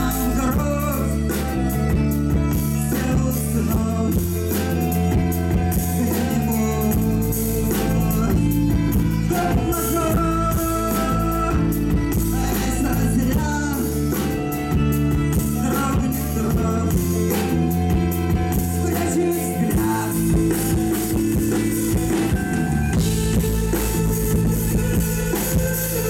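Live rock band playing loudly through stage speakers: electric guitars and a violin over a drum kit.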